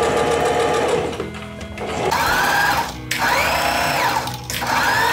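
Singer electric sewing machine stitching knit fabric as the seam is started with a back stitch. A steady run of about a second, then a brief pause, then several short runs, each rising and falling in pitch. Background music plays underneath.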